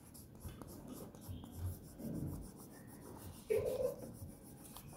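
A marker rubbing and scratching on paper as a drawing is coloured in with short back-and-forth strokes. About three and a half seconds in, a brief pitched sound stands out above it.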